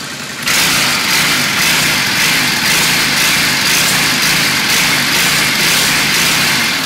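Honda Shadow 750 V-twin running through a Roncar Scorpion 2Way exhaust set to its quiet mode. About half a second in the sound suddenly gets louder, a steady hissing run over the engine note, and it drops back near the end.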